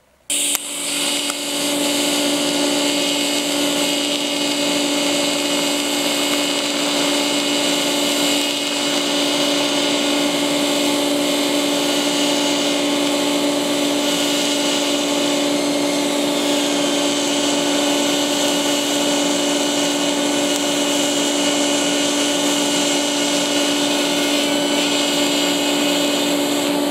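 TIG welding arc buzzing and hissing steadily, struck suddenly about half a second in.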